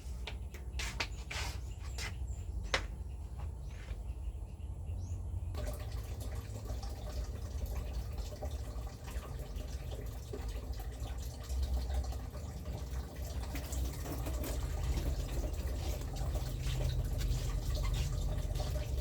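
Water running and dripping, with many small clicks and splashes over a low steady hum; the sound changes abruptly about five seconds in to a denser, fuller splashing.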